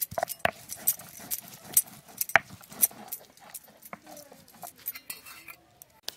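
Stone roller rubbed and knocked back and forth on a flat grinding stone (shil-nora), grinding wet garam masala, in quick repeated strokes that thin out and fade near the end.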